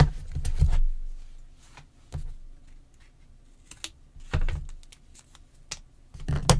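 Scissors snipping a thin paper construction strip to length, mixed with several dull thuds and taps as cardboard pieces are handled and set down on the table.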